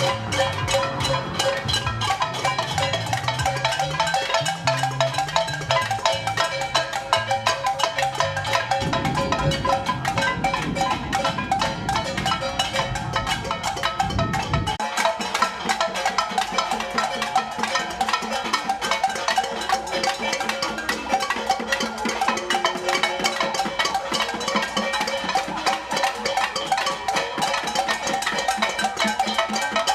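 Many noisemakers, pots, pans and drums, beaten rapidly and continuously by a crowd of protesters, a dense clatter of strikes with ringing metallic tones. A low rumble joins in for several seconds in the middle.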